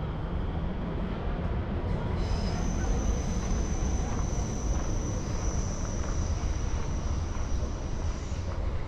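A train passing out of sight with a steady low rumble. From about two seconds in until near the end a thin, high wheel squeal rings over it.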